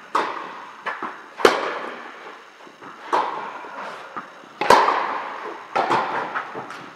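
A tennis rally on an indoor court: rackets striking the ball and the ball bouncing, sharp pops at irregular intervals, each echoing through the hall. The loudest come about a second and a half in and just before five seconds.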